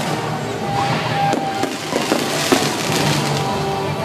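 A fireworks display: a steady crackle of bursting shells with a few sharp bangs, the loudest about two and a half seconds in, over show music.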